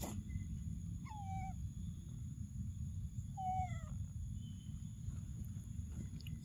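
Macaque giving two short coo calls about two seconds apart, each sliding down in pitch, over a steady low rumble.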